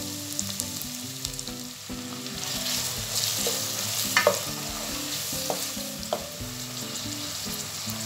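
Diced onion frying in oil and butter in a saucepan, with a steady sizzle. A spoon stirs through it, and a few short scrapes of the spoon against the pan come in the second half.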